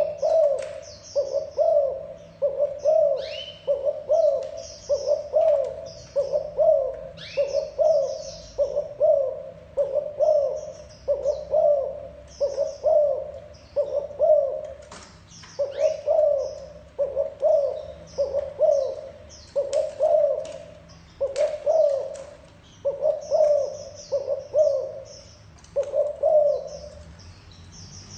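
A spotted dove giving its short repeated 'gù' coo, about one coo a second, with brief pauses. Small birds chirp high above it now and then.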